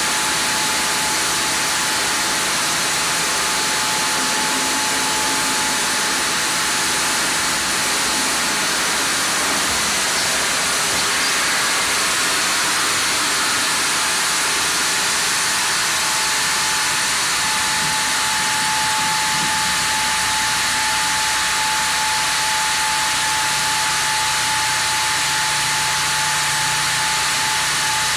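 Large sawmill band saw running and sawing a Japanese kalapanax (sen) log, with the log carriage moving: a steady loud hiss with a thin steady whine that drops away for several seconds mid-way and comes back. A low hum joins in during the last third.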